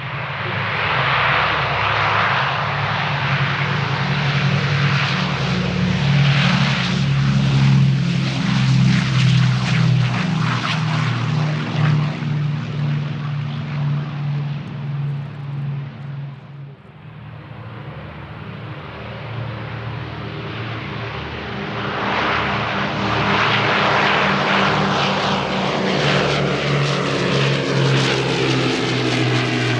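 Douglas DC-6B's four Pratt & Whitney R-2800 radial piston engines and propellers running at power, a loud steady drone. About halfway it drops away briefly, then swells again, and its pitch slides as the plane passes close near the end.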